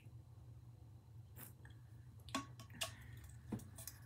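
A person chewing and swallowing a mouthful of dry chocolate bean-paste cake and taking a drink from an insulated tumbler, with several sharp clicks.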